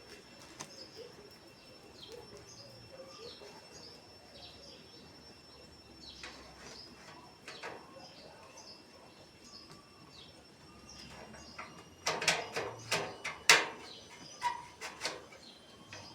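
Small birds chirping over and over, short falling chirps. About twelve seconds in comes a quick run of sharp clicks and knocks, the loudest sounds here.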